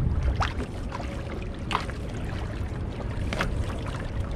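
Choppy sea water slapping and splashing against a kayak's hull, a few sharp splashes standing out, over a low wind rumble on the microphone.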